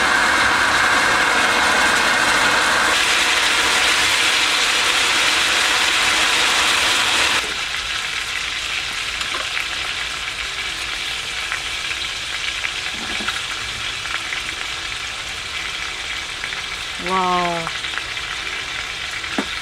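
Beef intestines (daechang) sizzling in a pan over a high-power gas burner turned up high. A loud hiss of flame and fat runs for about seven seconds, then drops suddenly to quieter sizzling with light crackles. A short rising tone comes near the end.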